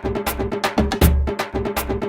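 Tabla drumming: a fast, steady run of sharp ringing strokes on the treble drum, with deep resonant bass-drum strokes recurring under them.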